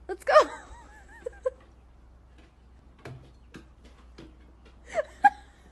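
Brief high-pitched, whimper-like vocal sounds with bending pitch come just after the start and again near the end. A few light taps fall between them.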